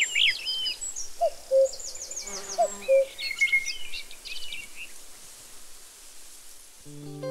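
Birdsong: several small birds chirping and trilling in quick high notes, with a few lower whistled or hooting notes between about one and three seconds in. The birds fade after about five seconds, and music with held notes comes in near the end.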